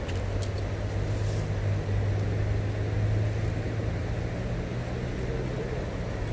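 A motor vehicle's engine running with a steady low hum, a little louder for a moment about two to three seconds in.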